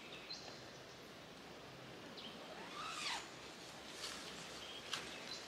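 Quiet handling of a down sleeping bag and nylon tent fabric, with faint rustling and a brief swish about three seconds in. Short whistled bird notes sound in the background.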